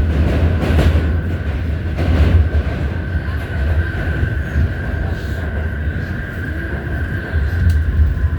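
An R68 subway car's traction motors howling at a steady high pitch over the deep rumble of the train running on the rails. Short wheel clacks come about one and two seconds in.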